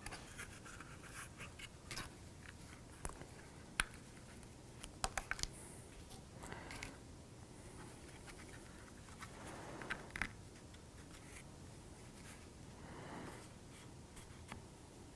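Faint handling sounds of small laser-cut kit pieces being fitted and glued: scattered light clicks and taps with soft scratching and rustling, a cluster of sharper clicks about five seconds in.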